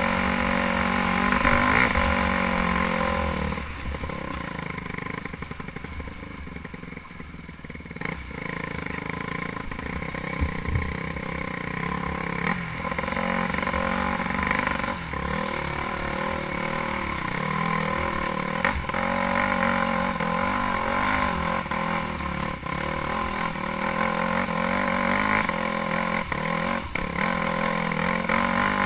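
Dirt bike engine heard from a camera on the bike, revs rising and falling with the throttle, eased off for a few seconds about four seconds in. Scattered sharp knocks and rattles come from the bike over the bumps of the trail.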